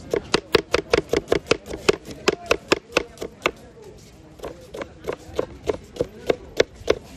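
Knife chopping rapidly on a cutting board, about five sharp strokes a second. It pauses briefly around the middle, then resumes a little slower.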